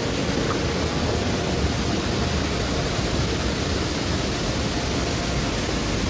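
Waterfall plunging onto rocks and the stream rushing below it: a loud, steady roar of water with no breaks.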